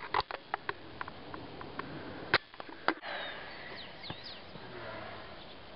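Footsteps and camera-handling clicks while walking a muddy trail, a few sharp knocks among them. About three seconds in, this gives way to open mountain-slope ambience with insects buzzing and a few short high chirps.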